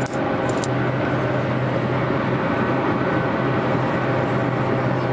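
Steady hum and rumble of a running vehicle engine, with a couple of light clicks near the start as stone arrowheads are handled.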